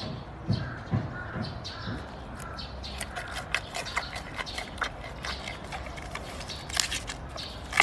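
Giant panda chewing and crunching bamboo: a run of short crisp cracks and snaps, with a few soft low thuds in the first second or so and a louder cluster of snaps about seven seconds in.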